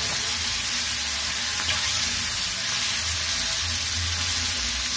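Kratok (lima) beans sizzling steadily in hot oil in a small granite-coated frypan while a spatula stirs them.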